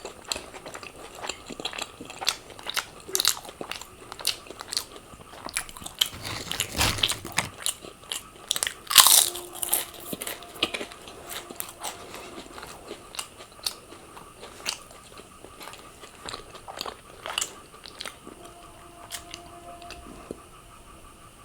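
Close-miked eating sounds: a person biting and chewing crunchy food, with a dense run of crisp crunches. The loudest crunch comes about nine seconds in, and the bites grow sparser toward the end.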